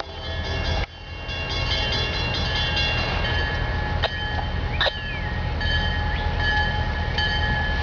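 Two EMD diesel locomotives, a GP40-2 leading an SD70ACe, rolling by with a steady low engine rumble. High, steady squealing tones come and go over the top, and there are two sharp clicks a little past the middle.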